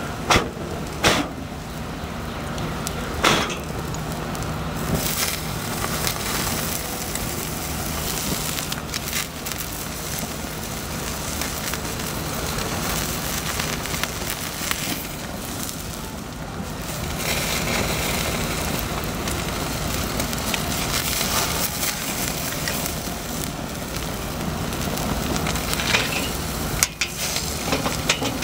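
Lump charcoal fire flaring in a charcoal chimney as fat from a searing porterhouse steak drips onto the coals: a steady noise of flames with a few sharp pops, several in the first few seconds and two near the end.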